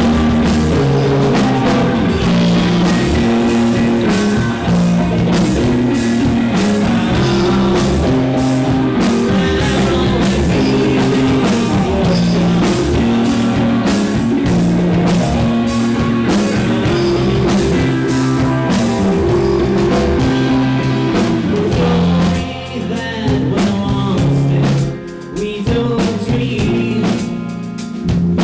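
Live rock band playing: distorted electric guitar, bass guitar and drum kit, with a male voice singing. The band drops back briefly a few times near the end before coming back in full.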